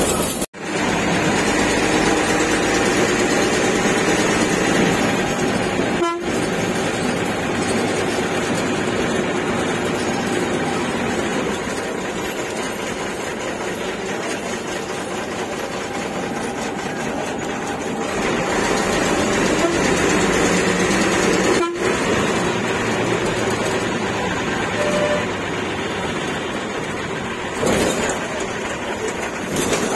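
Bus engine and road noise heard from inside a moving bus in town traffic, with vehicle horns honking.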